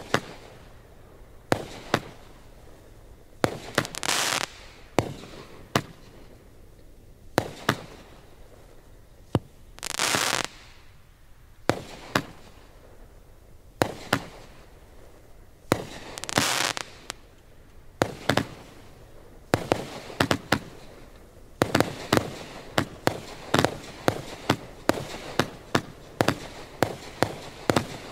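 Fireworks exploding: sharp bangs every second or two, with a few longer noisy bursts lasting about a second each. About two-thirds of the way in, the bangs come thick and fast in a rapid barrage.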